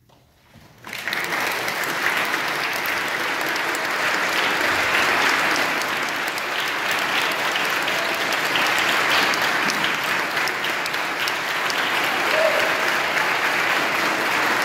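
Audience applauding, breaking out suddenly about a second in and keeping up steadily.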